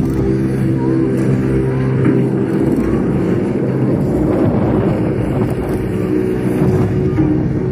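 Soundtrack of a building light-projection show played loud over speakers: a low droning soundscape of held tones that shift slowly.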